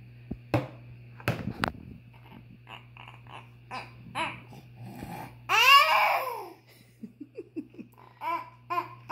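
Baby babbling and laughing, with one loud falling squeal a little past halfway and a run of quick, rhythmic giggles near the end. A few sharp knocks come in the first two seconds.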